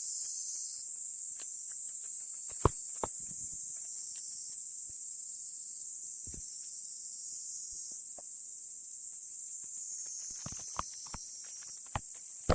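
Split firewood knocking as pieces are set on a woodpile: a few scattered knocks and a dull thud, then several in quick succession near the end, over a steady high-pitched hiss.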